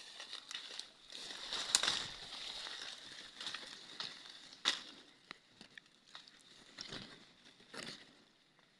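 Leaves and twigs rustling and crackling as someone pushes through dense undergrowth, with a few sharp snaps scattered through it.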